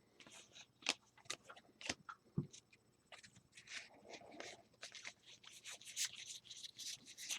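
Faint handling sounds of trading cards: scattered light clicks and soft rustling of cards being sorted, busier in the second half.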